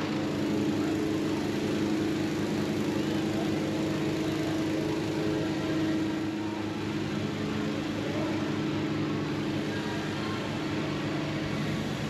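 The small engine of a hot air balloon inflator fan running steadily, a constant low drone.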